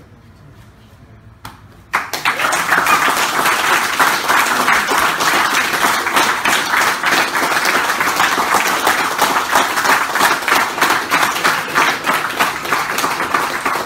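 A group of people starts clapping loudly about two seconds in and keeps applauding steadily.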